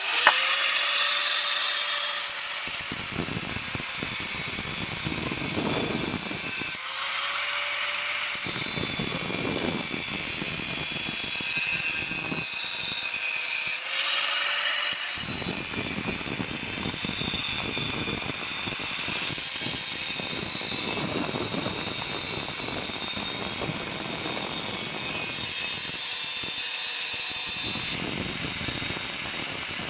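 Electric power tool working metal: a short rising whine three times, each followed by a long stretch of harsh, continuous grinding noise.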